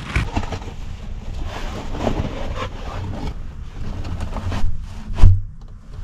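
A wooden plank door being opened and handled as someone goes through it: a run of knocks, scrapes and shuffling steps, with one heavy thump a little over five seconds in.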